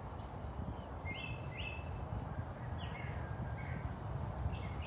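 Outdoor ambience: several short, falling bird chirps over a steady low background rumble.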